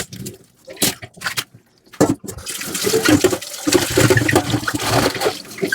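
Dishes being washed in a kitchen sink: a few sharp clinks and knocks, then tap water running steadily over the dishes from about two seconds in.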